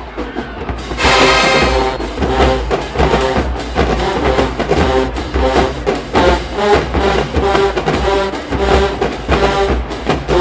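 HBCU marching band playing: drum taps, then the full brass section comes in loudly about a second in and plays a riff of short, punchy, repeated phrases over the drumline.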